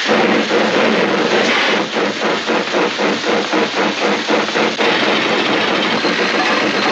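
Steam-train chugging sound effect: a loud, hissing chuff repeating about three to four times a second.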